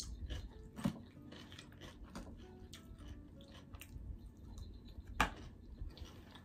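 Close-miked chewing and biting of salad, with the fork clicking and scraping against a plastic tub. Two clicks stand out, one just under a second in and a sharper one about five seconds in.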